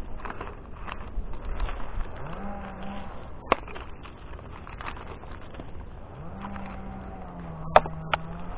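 Makita 36-volt cordless chainsaw's electric motor spinning up twice with a quick rising whine: a short burst, then a longer run of about two seconds. Sharp knocks and clicks throughout, the loudest near the end.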